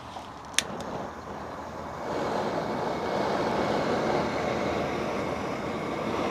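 Gas burner being lit under a pan of frying oil: a sharp igniter click, then the flame's steady roar, which grows louder about two seconds in.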